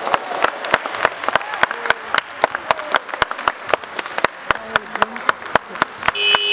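Scattered hand clapping from a few people in a sports hall, sharp uneven claps several a second. Near the end a steady high whistle starts and holds.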